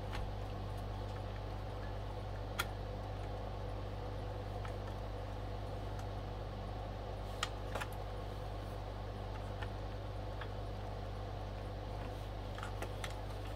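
A few light clicks and taps from handling the parts of a record player, several seconds apart and a small cluster near the end, over a steady low hum.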